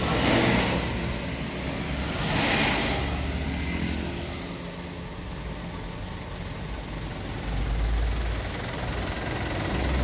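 Heavy trucks idling and creeping in slow traffic, a steady low diesel rumble, with a short sharp hiss about two and a half seconds in.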